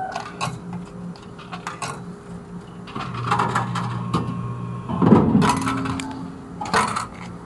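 Coins fed into an old whisky vending machine's coin slot, clicking and clinking as they drop inside. About three seconds in the machine's mechanism hums, and at about five seconds a heavy clunk and rattle comes as the purchase drops into the delivery tray, with another clatter near the end.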